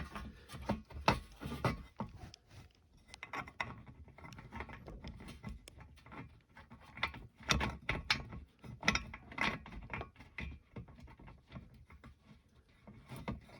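Irregular light clicks and knocks of metal roof-rack rails, bars and bolts being handled and fitted, busiest in the second half.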